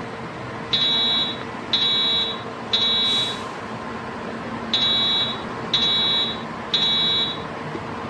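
Simulated fire alarm evacuation signal from an Edwards 757 speaker strobe: a high-pitched beep in the temporal-three pattern, three beeps about a second apart, a pause, then three more, over a steady background hum.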